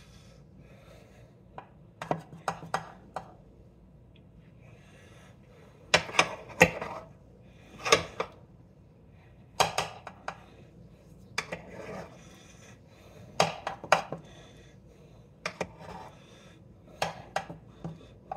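Kitchenware clinking and knocking in short clusters of sharp clicks, about every two seconds.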